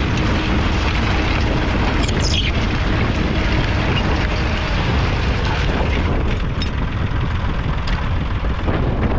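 David Brown 780's 2.7-litre three-cylinder diesel engine running steadily under load while pulling a two-furrow mounted plough.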